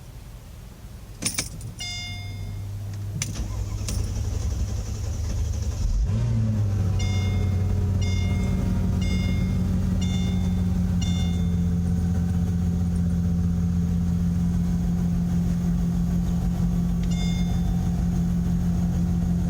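A 2003 Mercedes SL500's 5.0-litre V8 is started with the key: a click, a low hum for a few seconds, then the engine catches about six seconds in with a short flare of revs and settles into a steady idle. A dashboard chime beeps at the start, repeats about once a second for several seconds after the engine fires, and sounds again near the end.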